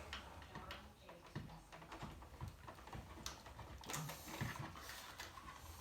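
Faint, scattered small clicks and taps of hard plastic being handled: a carbon monoxide detector and its wiring plug being worked at to fit the plug into the ceiling connector.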